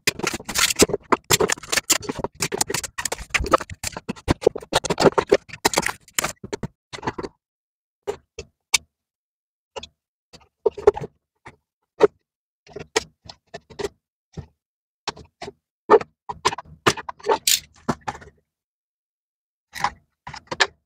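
Plastic seal wrap being torn and peeled off small toy boxes by hand: dense crinkling and crackling for the first six seconds or so, then scattered crackles and light taps with short pauses between them.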